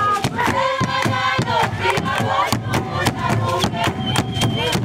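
A group of women and girls singing a Zulu dance song together, over a steady beat of a drum and handclaps, about three to four strikes a second.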